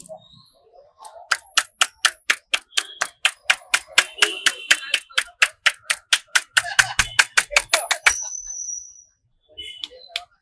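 Barber's hands tapping rapidly on the head during a head massage, a fast even patter of about five strikes a second that stops about eight seconds in.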